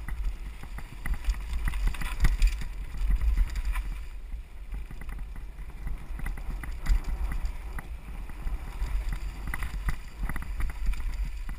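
Mountain bike ridden down a rocky singletrack: wind buffets the camera microphone in a constant low rumble, and the bike rattles and clacks as it jolts over stones and roots, with bursts of clatter about two seconds in and again near the end.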